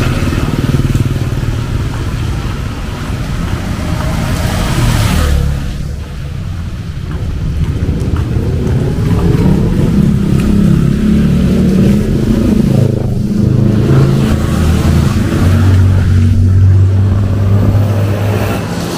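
City road traffic: car and motorcycle engines passing close by, their pitches rising and falling, with a hiss of tyres on a wet road in the first few seconds and a steady engine note near the end.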